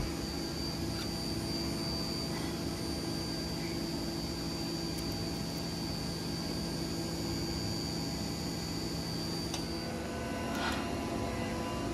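Steady workshop hum with a faint high whine that stops near the end, and a few faint clicks of radiator mounting hardware being handled.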